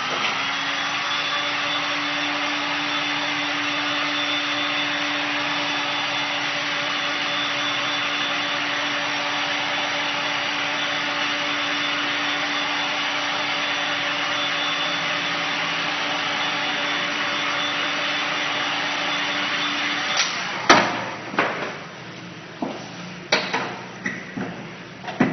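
Handheld heat gun running steadily, its fan motor giving a whirring rush with a low hum, while blowing hot air onto silicone-coated fabric; it cuts off about twenty seconds in. A series of sharp wooden knocks and clacks follows near the end as a wooden frame is set down on the table.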